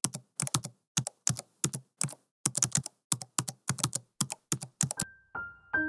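Keyboard typing sound effect: quick, uneven clusters of key clicks that stop about five seconds in. A few soft piano notes then begin.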